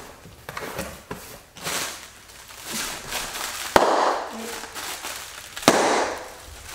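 Plastic air-cushion packing pillows being squeezed until they burst: crinkling plastic, then two sharp loud pops about two seconds apart.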